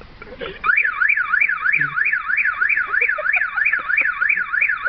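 Car alarm siren starting about half a second in, its pitch sweeping rapidly up and down about three times a second.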